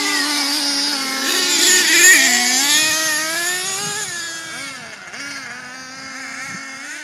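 Small nitro engines of two radio-controlled trucks, an HPI Savage X and an Ansmann Virus, revving up and down as they race. The sound is loudest about two seconds in, then fades over the last few seconds as the trucks move away.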